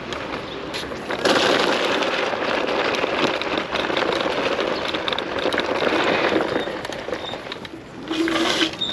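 Rushing road and wind noise of an electric scooter being ridden, the Nami Klima. The noise swells about a second in, holds loud until about six and a half seconds, and comes back in a shorter burst near the end.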